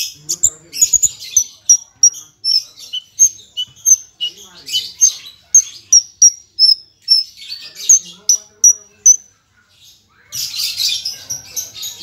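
Branjangan (Horsfield's bush lark), parva type, singing a rapid, varied song of chirps and mimicked calls with runs of short high whistled notes. It falls silent for about a second around nine seconds in, then resumes in a dense burst of song.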